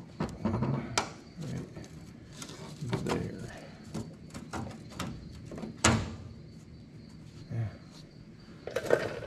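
Magnetic welding clamps snapping onto a steel patch panel and the vehicle's inner fender, with the sheet steel being shifted against the body: a series of sharp metallic clicks and knocks, the loudest about six seconds in.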